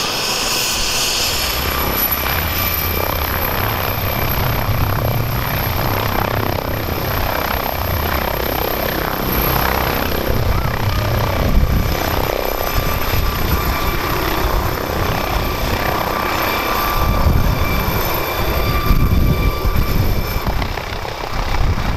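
An MD 902 Explorer air-ambulance helicopter lifting off and climbing away. Its turbines give a steady high whine over the beating of the main rotor, and the low rumble grows louder as it rises.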